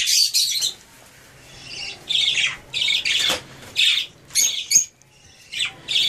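Lovebirds squawking: a string of short, high-pitched calls, one longer call at the start and about seven more scattered over the next few seconds.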